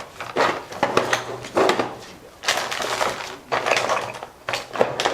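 Repeated light clattering, clicking and rustling of small hard objects being handled on a work surface, in uneven bursts with sharp clicks among them.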